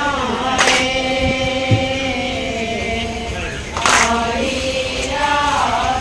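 Group of women singing an Assamese naam, a devotional chant, together in long drawn-out notes. Two sharp hits cut through the singing, about three seconds apart.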